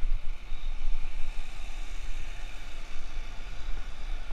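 City traffic heard from a moving bicycle: a steady hiss of passing cars and road noise over an uneven low rumble of wind on the microphone.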